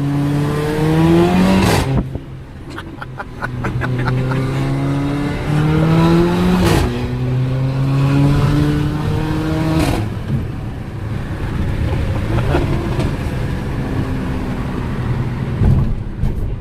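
Mercedes-AMG GLA 45's turbocharged four-cylinder engine accelerating hard through the gears. The pitch climbs three times, and each upshift (about 2, 7 and 10 seconds in) is marked by a sharp exhaust crack. After that the engine settles into steadier, quieter running.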